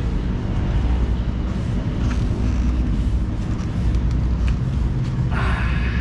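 Steady low rumble of outdoor background noise, with a brief hiss just before the end.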